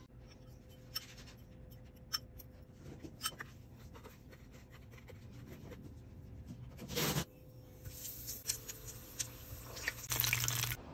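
Hands rolling a ball of dip in dry breadcrumbs, with soft rubbing and light clicks. Then a breaded ball deep-frying in hot oil, sizzling and crackling, with a short loud burst about seven seconds in and a louder stretch of sizzle near the end.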